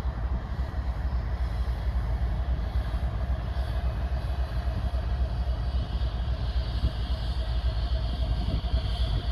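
CSX double-stack intermodal freight train passing, with a diesel locomotive running mid-train among the container cars: a steady, even rumble of engine and rolling wheels on the rails, with a thin steady tone running through it.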